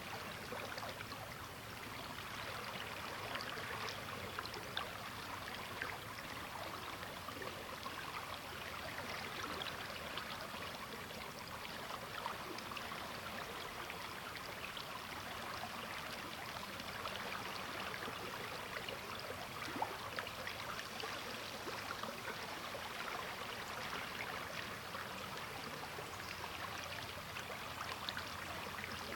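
River water flowing steadily over rocks, a continuous rushing with fine splashing and gurgling throughout.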